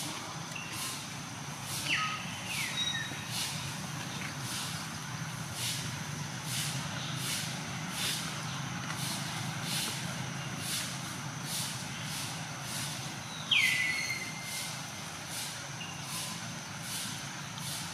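Steady outdoor ambience: a low rumble under a regular high pulsing, about one and a half beats a second. A short, high squeal that falls in pitch comes about two seconds in and again, louder, near the end.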